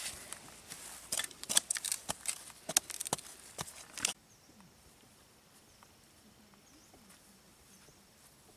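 Hooked machete blades digging and scraping into soil and hacking at a woody root stump: a rapid, irregular run of sharp knocks and scrapes. It stops suddenly about four seconds in, leaving faint bird chirps about once a second.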